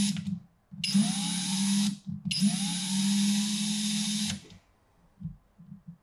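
Cordless drill driving woodscrews into plywood and 2x4 lumber, run in short trigger pulls. The motor stops just after the start, runs again for about a second, pauses briefly, then runs for about two seconds more, each run opening with a short rising whine. A few soft low knocks follow near the end.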